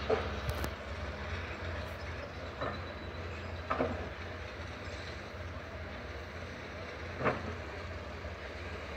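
Construction machinery engine running with a steady low rumble, with about four short knocks scattered through.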